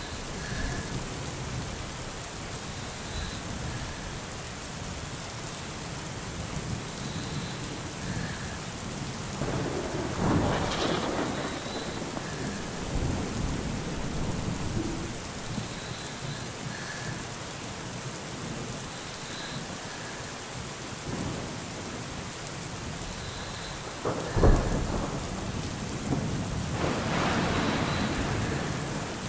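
Steady rain with rolling thunder. One rumble swells about ten seconds in; a sharp, loud clap comes near the end, followed by a longer rumble.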